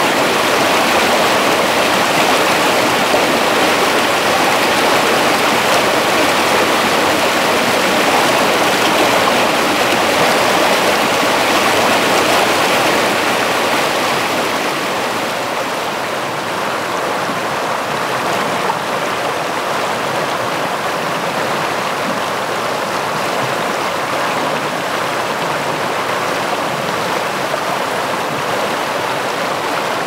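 A rocky mountain stream rushing over boulders and small cascades, a steady, even rush of water. It eases slightly about halfway through.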